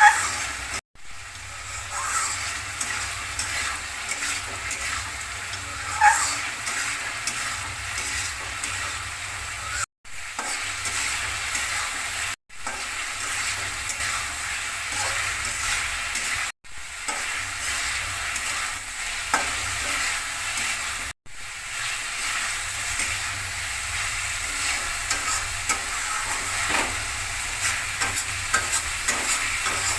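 Spice paste and potatoes sizzling in a kadai, with a spatula stirring and scraping now and then. The sound drops out abruptly five times, about one, ten, twelve, sixteen and twenty-one seconds in.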